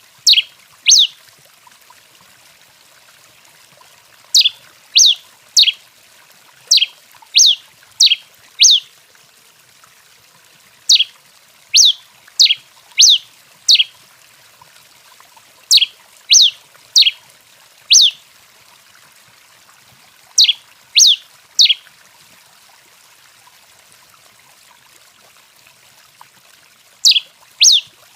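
Tico-tico-rei finch (Coryphospingus) singing: short, sharp notes that each slide down in pitch, given in quick runs of two to five with pauses of a few seconds between runs.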